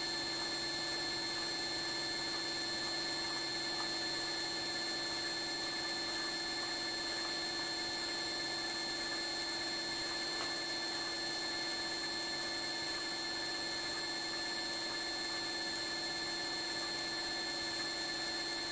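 Slotting head on a Bridgeport milling machine running steadily, its motor giving a constant whine of several fixed tones while the ram strokes the cutter up and down, cutting a keyway in a steel motor coupler.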